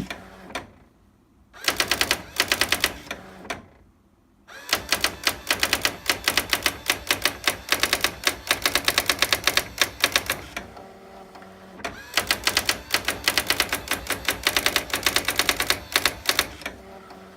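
Brother electronic typewriter printing an ASCII character test under computer control: runs of rapid, evenly paced key strikes broken by short pauses, some with a brief motor whir.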